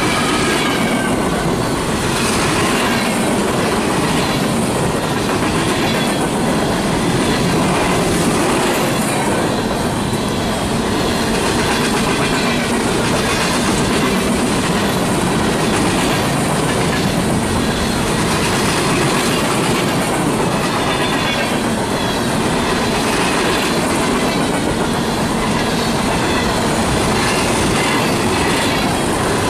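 Empty coal cars of a freight train rolling past close by: a steady, loud noise of steel wheels on rail with a regular repeating clatter from the passing wheel sets.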